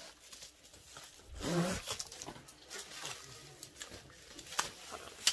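Plastic packaging and bubble wrap being handled, crinkling with a few sharp crackles near the end. A short pitched vocal sound, the loudest thing, comes about a second and a half in.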